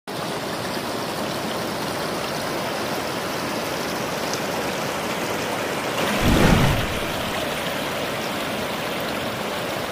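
A shallow river rushing over rocks in rapids: a steady hiss of running water. About six seconds in, a brief low rumble swells and fades.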